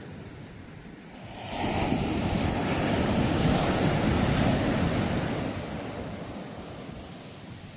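Ocean waves: a wave breaks about a second and a half in. Its surge rises quickly, holds for a few seconds, then slowly fades as the water draws back.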